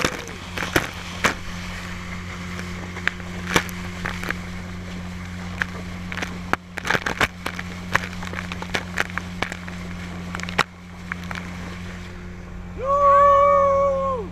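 Small outboard motor running steadily, driving a mini speedboat, with water splashing and slapping against the hull in many sharp smacks. Near the end a man gives one long loud shout.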